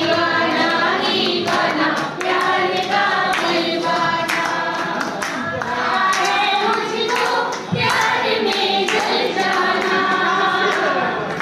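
A woman singing a song into a handheld microphone, with a group of women singing along and clapping in time.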